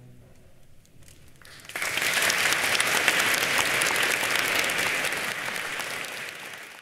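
The orchestra's last chord dies away, a brief hush follows, and then the audience breaks into applause about two seconds in. The clapping is dense and steady, fading out near the end.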